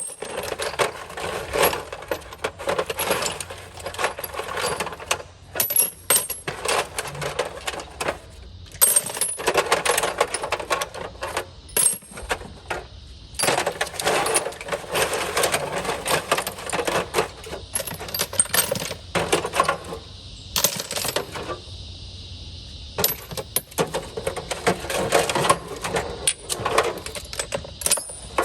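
Steel hand tools clinking and clattering against each other as they are lifted out of a toolbox drawer and set down, a near-continuous run of metallic clinks with a short lull about three-quarters of the way through.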